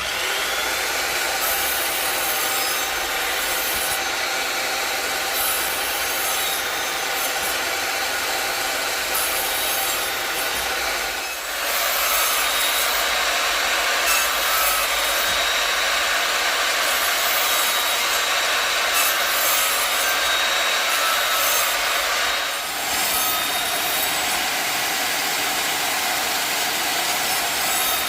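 Evolution chop saw running, its height-set blade pulled across small wood pieces in shallow passes to cut tenons. The noise dips briefly twice, about 11 and 23 seconds in.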